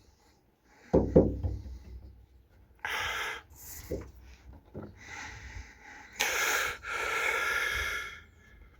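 A person's breathy, unvoiced exhalations in several gusts, with a sharp knock about a second in.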